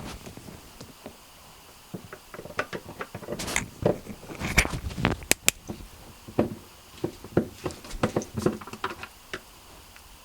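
Irregular small clicks, taps and rattles of a screwdriver and screws being handled while the screws holding a plastic panel inside a refrigerator are taken out.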